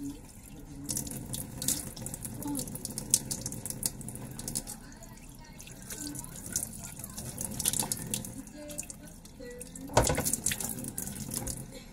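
Water running from a tap into a sink while hands splash and wash under the stream, with a louder splash near the end.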